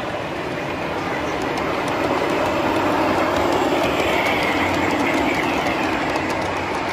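O scale model passenger train rolling past, its wheels rumbling and clicking over the track. It grows louder as the cars come up close, with the clicks quickening toward the end.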